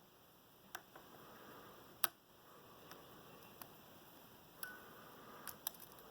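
Faint, sharp metallic clicks and ticks of a lock pick and tension wrench working the pin stacks of an American 1165 padlock's six-pin core, about seven clicks spread unevenly, the loudest about two seconds in.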